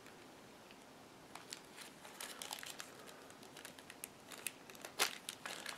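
Small zip-top plastic bag crinkling and rustling as it is handled, a string of small clicks starting about a second in, with a sharper click near the end.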